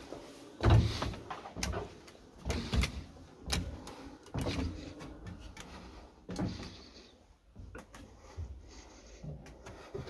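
Someone climbing a wooden ladder into an attic: irregular wooden knocks and thumps of feet and hands on the rungs and floorboards, the loudest about a second in, the rest fewer and lighter after the top is reached.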